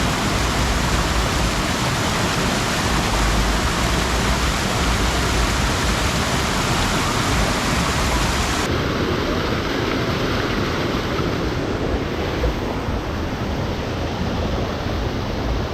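Bomburu Ella waterfall rushing in a steady, loud hiss of falling water, with little water coming over it. About nine seconds in the sound abruptly turns duller, losing its highest hiss.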